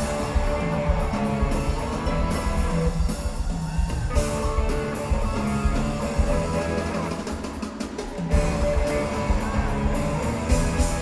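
Live rock band playing hard: electric guitar, bass and a drum kit, with a brief break about eight seconds in before the band comes back in.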